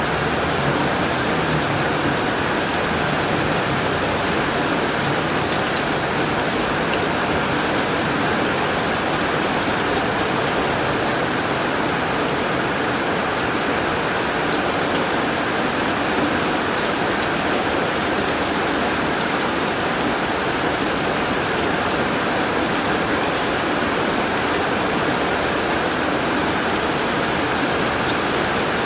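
Heavy rain falling steadily on a tin roof, a dense even patter with sharp drop ticks scattered through it.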